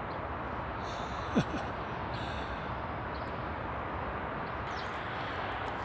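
Steady outdoor background noise, with one short falling squeak or call about a second and a half in.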